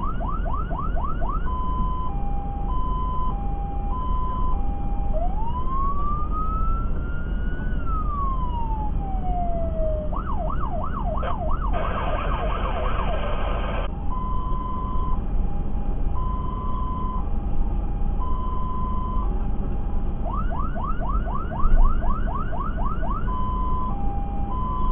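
Fire engine's electronic siren cycling through its patterns, heard from inside the cab: a two-tone hi-lo, one slow rising and falling wail, and fast yelp sweeps, with a two-second horn blast about twelve seconds in. The truck's engine and tyres rumble underneath.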